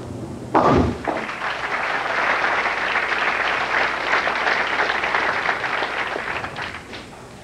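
A bowling ball strikes at the end of the lane with a sharp crash about half a second in, followed by several seconds of crowd applause that fades near the end.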